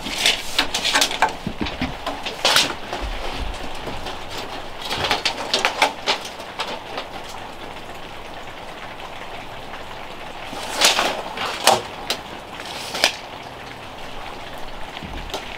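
Scattered light clicks and knocks of hand tools and metal hardware against a wooden plank door, coming in small clusters over a steady background hiss.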